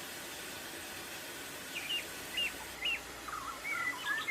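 Small birds chirping in short, quick notes that become busier toward the end, over a steady hiss.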